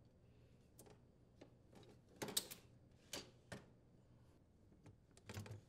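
Wooden wine racks of a Jenn-Air wine cellar being slid back onto their metal slide rails: a scatter of light clicks and knocks as the racks go in and seat, the loudest about two and a half seconds in, with a few more near the end.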